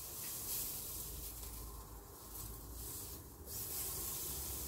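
Pork chops and mushrooms sizzling on an electric tabletop grill plate, a steady quiet hiss.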